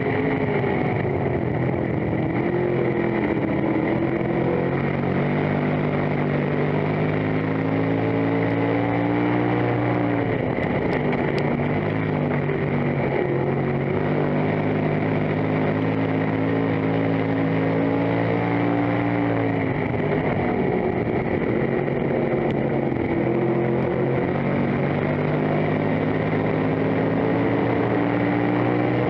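Race car engine heard from inside the cockpit, running hard at speed. Its pitch climbs slowly for several seconds, then falls sharply about every ten seconds as the driver lifts for the turns of the dirt oval.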